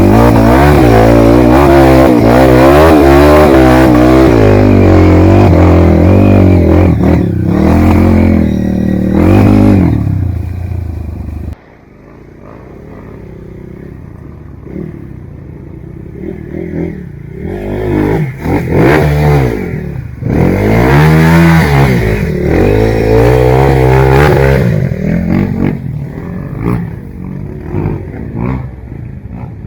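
Trail motorcycle engine revving hard with its pitch rising and falling constantly. About eleven seconds in the level drops suddenly, then the engine revs up and down again in shorter bursts and settles lower near the end.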